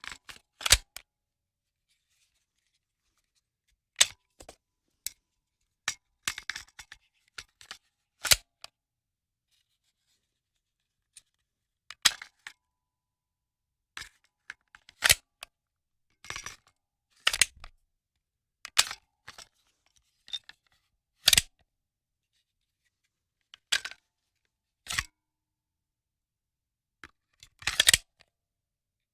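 Handgun magazine being handled and loaded: a series of separate sharp metallic clicks and snaps, some single and some in quick little clusters, every second or few, with silence between.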